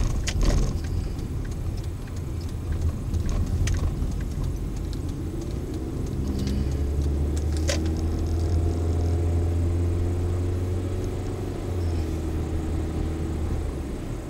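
Engine and road noise inside a moving car, heard through a dash camera's built-in microphone: a steady low drone that grows louder about six seconds in, with a few sharp clicks and rattles.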